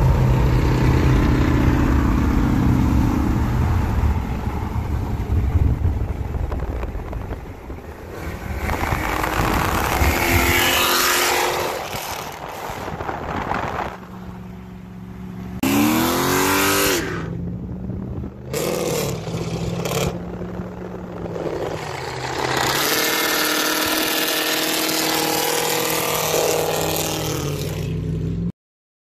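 2002 Mustang GT's 4.6-litre two-valve V8 running through a custom X-pipe exhaust with the cats, mufflers and resonator deleted, accelerating on the road, heard from a neighbouring car with road noise. About halfway through the revs sweep up and down sharply.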